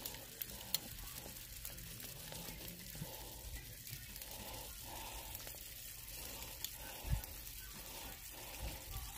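Water boiling in a pot around a glass measuring cup of melting candle wax: a faint, steady hiss, with a few light clicks of a utensil against the glass.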